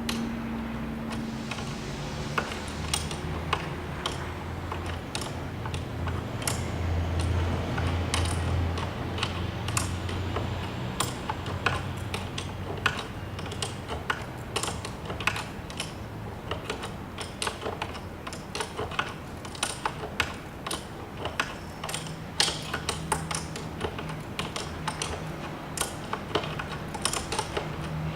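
Irregular metallic clicks and clacks of a spanner working a nylon-insert lock nut down a steel bolt, slow going because the nylon insert grips the bolt's thread.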